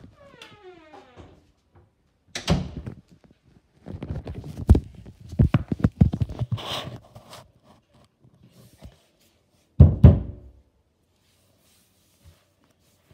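A short falling squeak at the start, then a series of knocks and thumps from the phone being handled and rubbed against clothing; the loudest are two heavy thuds about ten seconds in.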